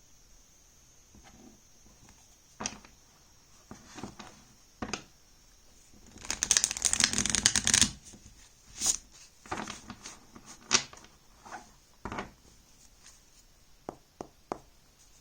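A deck of oracle cards being handled and shuffled: scattered soft taps and slides, with a dense run of rapid card flicking for about two seconds in the middle.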